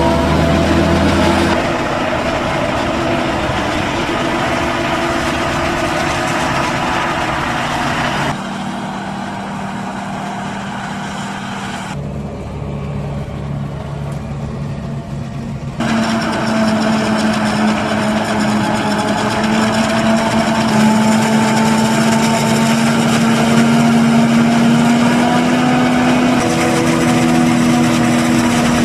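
Diesel engines of farm machinery at work chopping corn silage: a Claas Jaguar 880 forage harvester and the tractors and tipper truck hauling for it, running steadily. The sound drops at about eight seconds and again at twelve, then comes back louder at about sixteen seconds with a steady hum.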